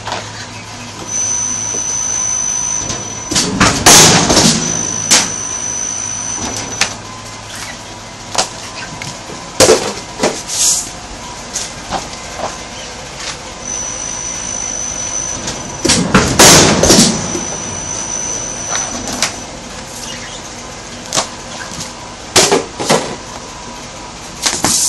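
SE WOONG SW-1200S flatbed die-cutting press working through two cycles about twelve seconds apart, each a loud mechanical rumble and clatter as the sliding table travels and the press strokes, with a thin high whine around it. Shorter sharp knocks come in between.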